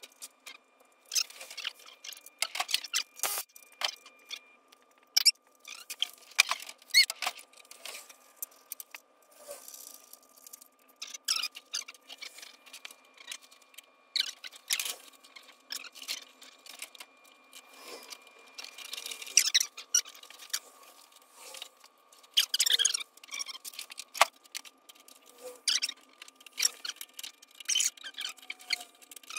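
Workshop handling noise: irregular clicks, clinks and scrapes of tools and metal parts as a small engine is fitted to a go-kart frame, over a faint steady high whine.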